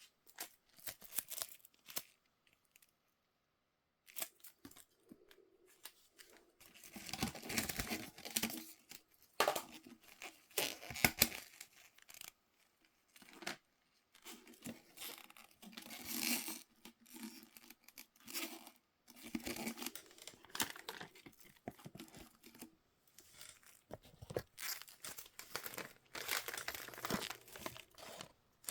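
Toy packaging being torn open and crinkled by hand, in irregular rustling bursts with short pauses.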